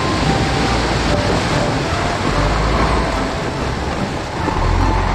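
A jeep driving: a steady rush of engine, tyre and wind noise, with the low rumble swelling about halfway through and again near the end.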